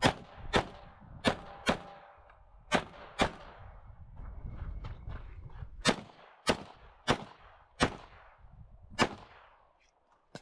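Glock pistol firing eleven shots, mostly in quick pairs about half a second apart, with a pause of about two and a half seconds midway.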